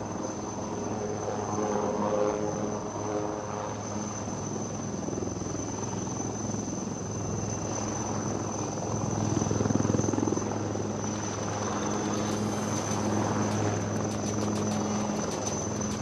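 Helicopter flying, its engines and rotor running steadily with a constant high-pitched whine over a low hum. A fast, even rotor chop comes in about three quarters of the way through.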